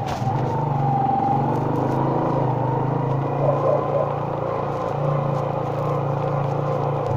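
Motorcycle engine running steadily while it is ridden at low speed.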